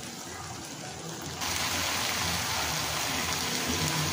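Ghugni masala, peas and chopped coconut frying in a kadai over a low flame: a steady sizzle that steps up louder about a second and a half in and then holds.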